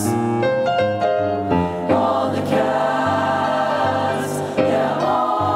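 Mixed chamber choir singing a swing-style choral arrangement with piano accompaniment: short moving notes for the first two seconds, then a long held chord.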